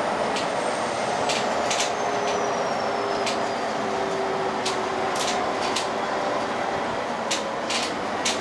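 Van Hool Exqui.City articulated hybrid bus under way, heard from inside the cabin: steady running noise with a hum from the drivetrain, and sharp clicks and rattles from the interior fittings. About a second in, a faint high whine slides down in pitch over a couple of seconds.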